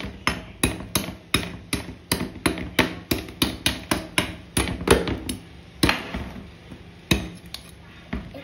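Metal spoon striking and chipping a ball of ice: a rapid run of sharp taps, about four a second, that thins to a few single taps after about five seconds and stops near the end.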